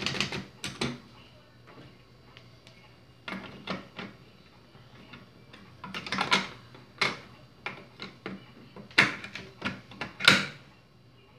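Portable manual typewriter: the last few keystrokes click in the first second, then the machine is handled by its cover and carriage. This gives three separate groups of clunks and clicks, the loudest near the end.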